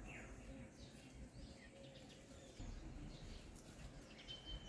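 Quiet rural ambience: a few faint, short bird chirps over a low background rumble.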